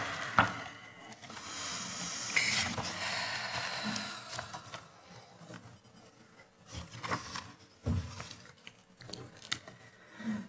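Soft paper rustling from books and pages being handled close to the table microphones, then a few light scattered clicks and knocks.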